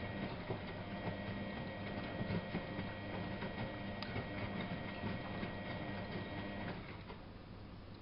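Miele Novo Super W933 washing machine running: a steady motor hum with light irregular clicking and rattling. The hum drops away about seven seconds in.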